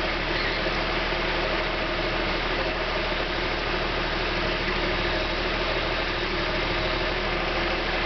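Backhoe loader's diesel engine running steadily at a constant level while the backhoe boom and bucket swing slowly side to side.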